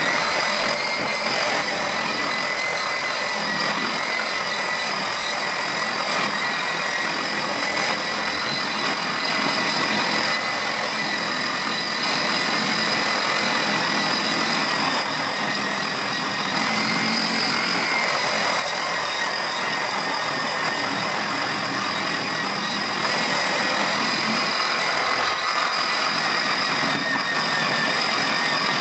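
Handheld angle grinder with a polishing pad running steadily while it grinds a wet terrazzo floor: a steady high motor whine over the grinding noise.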